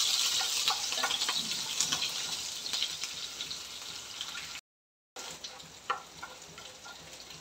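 Sliced green chillies and whole spices sizzling in hot oil in a nonstick wok, stirred with a wooden spatula that scrapes and taps the pan. The sizzle fades gradually, and the sound cuts out completely for a moment about two-thirds of the way through.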